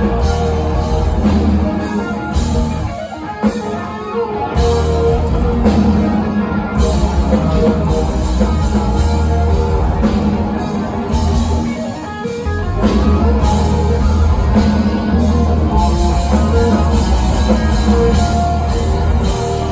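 Live rock band playing loud and full: electric guitars, bass and a drum kit. The band drops out briefly about three seconds in and again about twelve seconds in, then comes back in.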